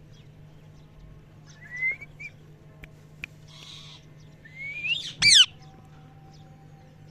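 Indian ringneck parrot giving a couple of short rising whistles, then a loud harsh call that falls in pitch about five seconds in.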